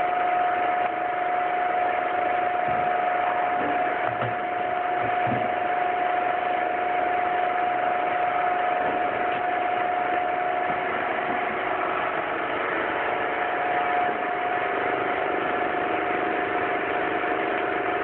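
High-pressure washer running steadily, a constant hum over a hiss, as it sprays detergent and water through a lance.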